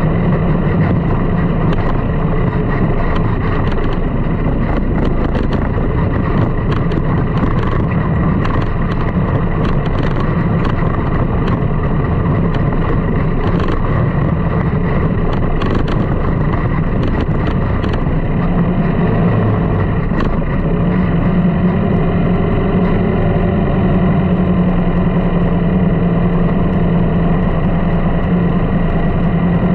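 Sand rail's engine running steadily as it drives across soft sand, with scattered short rattling clicks in the middle. From about eighteen seconds in, the engine settles to a steadier, even low hum.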